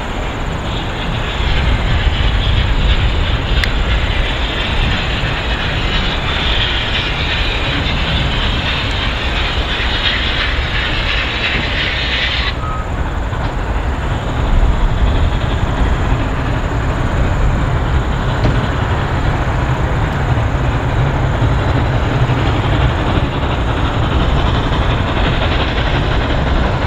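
Victorian Railways K-class steam locomotive working hard, hauling a passenger train up a steep 1-in-50 grade: loud, steady exhaust and running noise, heavy in the low end.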